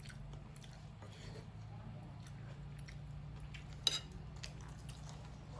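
Quiet eating sounds at a meal: faint clicks of cutlery on a plate, with one sharper clink about four seconds in, over a steady low hum.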